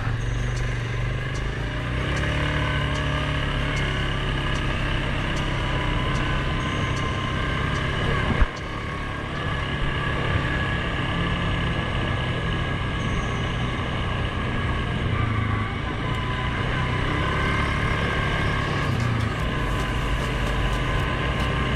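Suzuki KingQuad 750 ATV engine running steadily at a cruise. One sharp knock comes about a third of the way in, and a patter of small clicks near the end.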